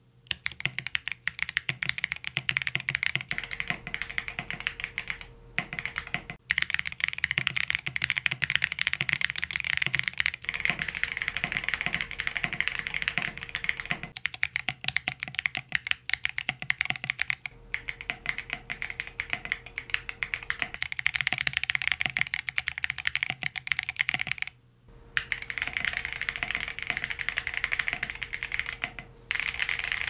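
Fast, continuous typing on a Geonworks Frog Mini mechanical keyboard with Geon Clear switches and full metal keycaps, with a small piece of foam added inside the case. The typing breaks off briefly a few times.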